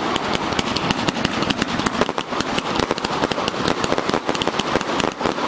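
Xplode CNY305 'Smile From Hell' firework cake firing: a dense, rapid crackle of many sharp pops a second, mixed with heavier bangs as its shots burst overhead.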